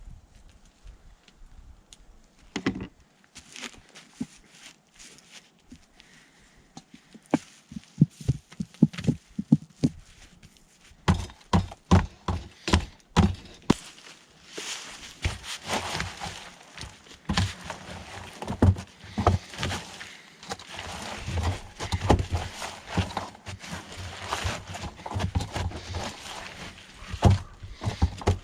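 Irregular footsteps and scattered knocks, sparse at first and busier from about eleven seconds in.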